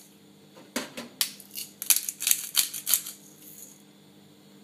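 Pepper mill grinding black pepper: a run of about seven short crunchy bursts, roughly three a second, that stops about three seconds in.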